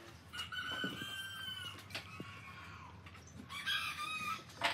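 A rooster crowing twice: a long crow, then a shorter one about three seconds later.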